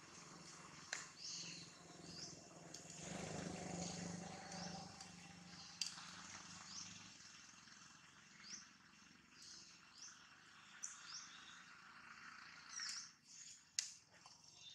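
Faint forest ambience with short, high bird chirps scattered throughout, and a low hum for a couple of seconds about three seconds in.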